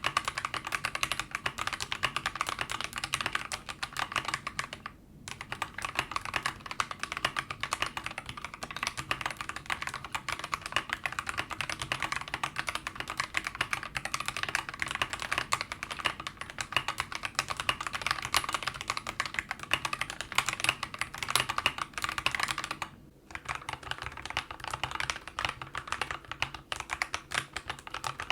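Fast continuous typing on a mechanical keyboard fitted with Akko CS Starfish switches, first stock, then, after a short pause about 23 seconds in, with the switches lubed. There is a shorter break in the typing about 5 seconds in.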